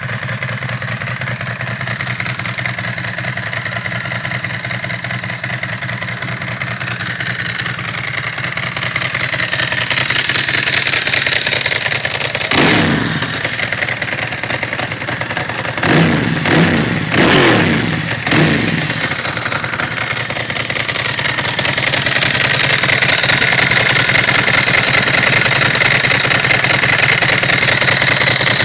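Ducati SuperSport 1000SS air-cooled 90-degree V-twin idling through aftermarket stainless-steel GP-replica cans. It gets one throttle blip about halfway through, then four quick blips a few seconds later. Near the end the idle is heard close up and louder at the open clutch cover, with the rattle of the exposed dry clutch.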